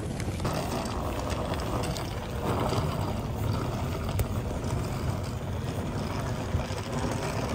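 Steady outdoor rumble with a hiss above it, from wind buffeting the phone's microphone in falling snow over the low noise of traffic.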